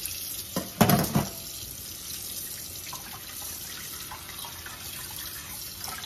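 Kitchen faucet running steadily into a stainless steel sink, the stream splashing over a whole fish being rinsed by hand. A few loud knocks come about a second in.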